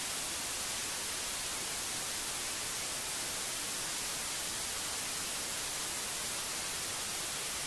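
Analog television static: a steady hiss, strongest in the treble.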